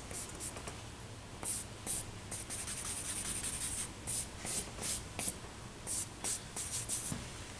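Charcoal scratching across drawing paper in a run of short, quick strokes, with one longer drawn stroke in the middle.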